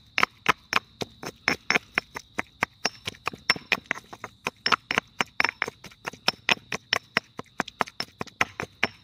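Stone pestle pounding in a stone mortar: a fast, even run of sharp knocks, about five a second, as garlic, herbs and chili are crushed into chimichurri.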